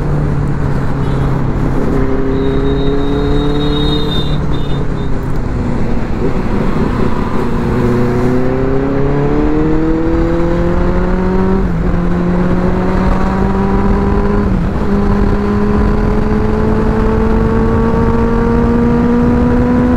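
Benelli motorcycle engine running under way with wind rush over the microphone. Its pitch sags about six seconds in, then climbs as the bike accelerates, dipping briefly at upshifts about 12 and 15 seconds in before rising steadily again.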